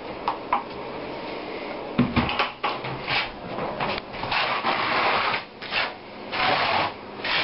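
A trowel scraping thin-set mortar over wire mesh on an OSB subfloor in repeated strokes, about one or two a second. A knock comes about two seconds in, just before the strokes begin.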